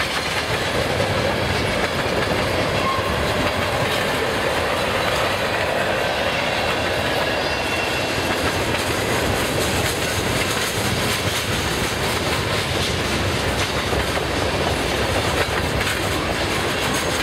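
Freight train cars rolling past: a steady rumble of steel wheels on rail with a continuous run of clicks from the wheels over the rail joints.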